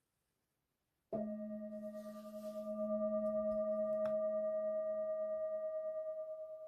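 A singing bowl struck once about a second in, ringing on with a steady, regularly wavering tone and several overtones, slowly dying away near the end.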